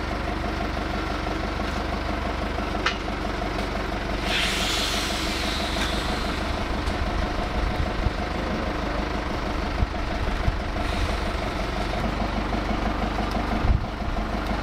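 A diesel engine idling steadily throughout. About four seconds in a hiss lasts roughly two seconds, and there are a few light clicks.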